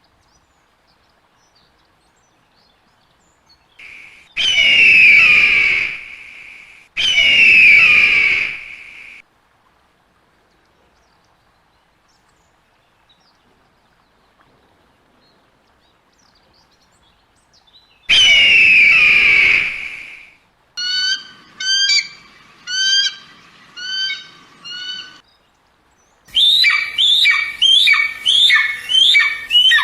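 Eagle calls: three long, harsh screams that fall slightly in pitch, with a long gap before the third, then a series of five short piping whistles and a rapid chattering run of about nine notes near the end.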